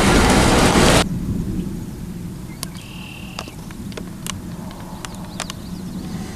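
Thunderstorm sound: a loud rush of wind and rain that cuts off abruptly about a second in. A quieter low rumble follows, with scattered sharp ticks of raindrops.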